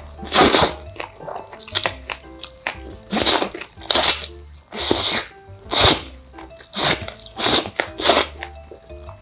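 Close-miked slurping and chewing of jjajangmyeon, black bean sauce noodles: a run of about eight loud, short slurps and wet mouthfuls. Soft background music runs underneath.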